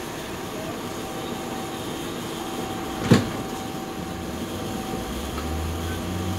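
Inside a streetcar: steady running noise with a faint hum, a single sharp clunk about three seconds in, and a low hum coming on near the end.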